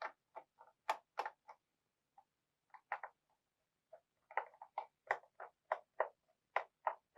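Faint, irregular string of small clicks and ticks from a screwdriver loosening the screws of a laptop's bottom cover.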